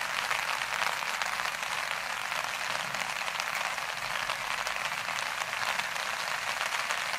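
Steady rain pattering, a dense hiss of fine close-set drops.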